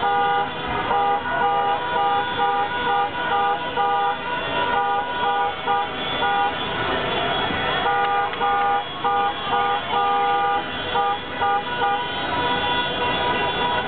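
Car horns honking in runs of short, rhythmic toots, with a pause of a few seconds midway: celebratory honking from cars stuck in a jam.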